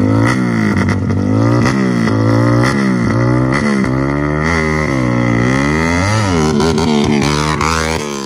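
Motorcycle engine revving through an aftermarket OBR exhaust, its pitch rising and falling again and again as the throttle is opened and closed. The sound drops away near the end.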